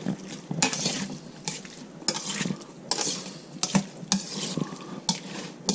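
Metal tongs stirring and tossing food in a stainless steel mixing bowl: irregular clinks and scrapes of metal on metal as the pieces are coated with sauce.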